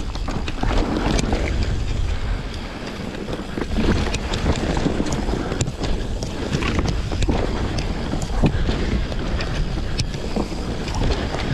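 Mountain bike descending dirt singletrack: wind buffeting the microphone over a steady rumble of tyres on the trail, with frequent clicks and rattles from the bike as it rolls over rocks and roots.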